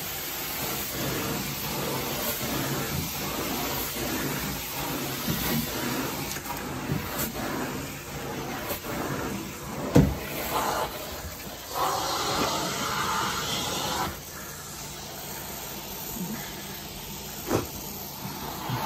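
Carpet-cleaning extraction wand running over carpet: a steady rushing hiss of vacuum suction and spray. A sharp knock about ten seconds in, and a shorter one near the end.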